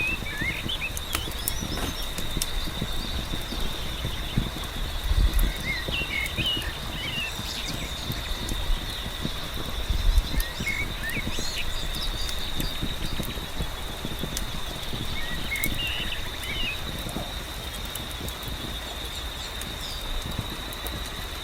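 Layered nature ambience: steady rain pattering with sharp crackles of a wood fire, a steady high pulsing trill throughout, and short bird chirps in a few clusters. Two low rumbles come about five and ten seconds in.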